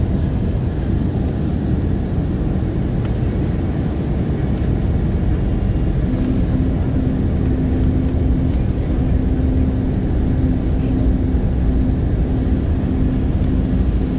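Cabin noise of an Embraer 190 airliner in flight, heard from a window seat: the steady rush of airflow and the General Electric CF34 turbofan engines. A low steady hum joins about six seconds in, breaking off now and then.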